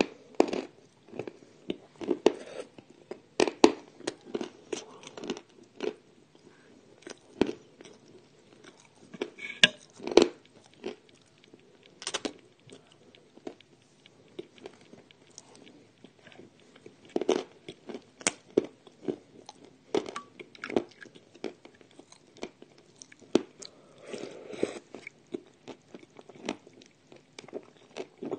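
Someone bites and chews crunchy chunks of edible Ural clay close to the microphone: irregular sharp crunches, often one or two a second, with softer chewing between them.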